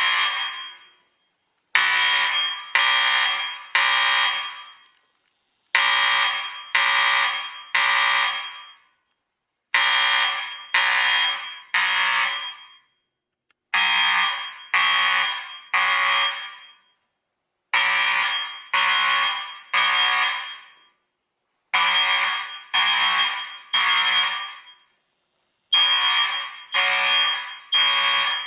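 Fire alarm sounding in the temporal-three evacuation pattern: three loud one-second blasts, then a pause, repeating about every four seconds. It was set off by a manual pull station.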